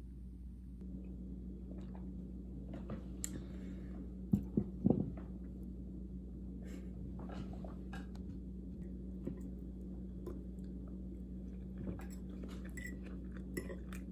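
A person chewing a mouthful of food close to the microphone, with soft mouth clicks over a low steady hum. About four to five seconds in, a few louder sharp knocks.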